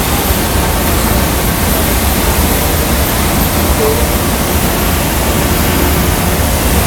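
Steady, loud roar of a glass factory hot shop: the furnaces and their burners and blowers running.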